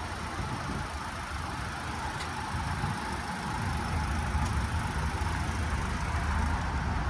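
Steady car noise: a low rumble with an even hiss over it and no distinct events.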